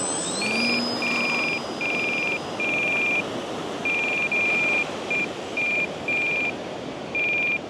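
Repeated high electronic beeps of uneven length sound over a steady wash of surf noise. A whine rises in pitch and then holds near the start.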